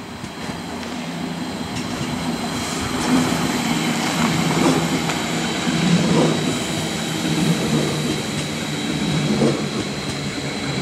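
A train running by close at hand, growing louder over the first three seconds, with a steady high whine and a low hum that swell every second or two.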